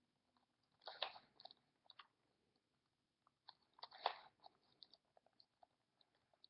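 Plastic Rubik's Cube layers being twisted by hand: faint scattered clicks, with two louder bursts of clicking and rattling about one and four seconds in.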